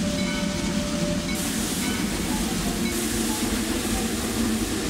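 Cab of a Lima-built Shay geared steam locomotive under way: a steady mechanical rumble, with a steam hiss that comes on about a second and a half in and grows louder about three seconds in as a backhead valve is worked.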